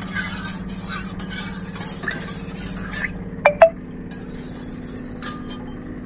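A spoon stirring curd in a small steel pot, with light scraping and clicking against the metal. About three and a half seconds in, two sharp metal clinks ring out, the loudest sounds here. A steady low hum runs underneath.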